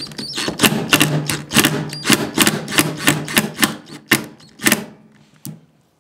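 DeWalt cordless impact driver hammering on a rusted, seized scissor pivot screw through a flathead bit, about three sharp impacts a second over the motor's hum. The impacts thin out and stop about five seconds in.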